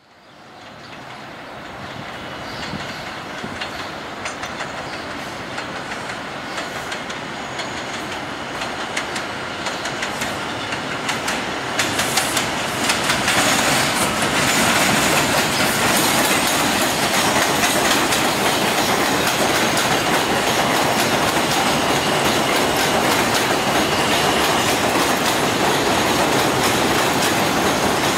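An R142 subway train on an elevated line approaches, growing steadily louder over the first dozen seconds. Around twelve seconds in there is a short run of wheel clatter, and after that it rolls close by with a steady loud rumble of wheels on rail and a faint high whine.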